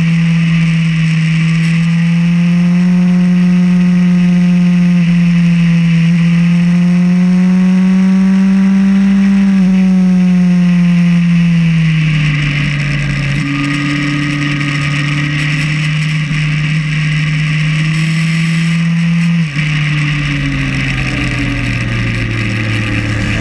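Motorcycle engine under way at a steady cruise. Its note climbs slowly for about ten seconds, then drops as the throttle is eased. The sound dips briefly about three-quarters of the way through and carries on at a lower pitch.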